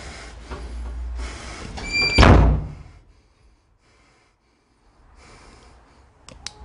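Wooden door pushed open: a brief high squeak and then a loud bang about two seconds in, after a couple of seconds of shuffling movement. Two faint clicks follow near the end.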